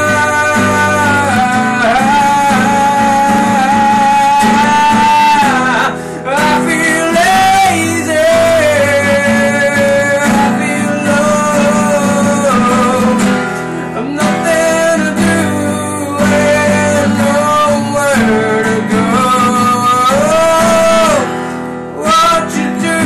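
A man singing, with long held notes, to his own acoustic guitar accompaniment.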